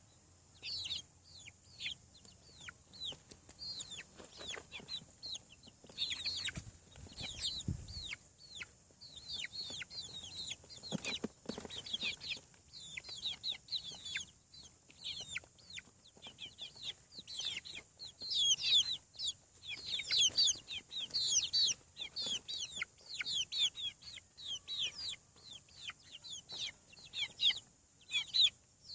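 A group of chicks peeping steadily: many short, high calls that fall in pitch, overlapping, and busiest in the second half.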